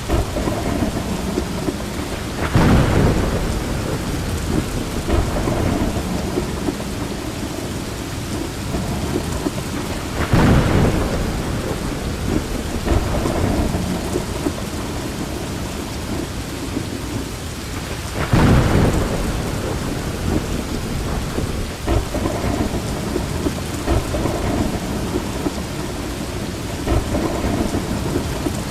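Heavy rain pouring steadily in a thunderstorm, with three loud rumbles of thunder spaced about eight seconds apart.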